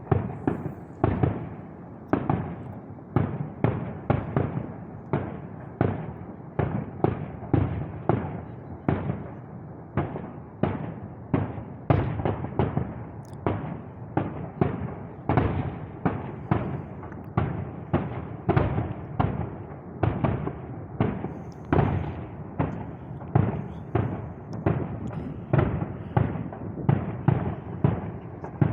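Fireworks going off in a long, steady run of bangs, about two a second, each with a short echoing tail.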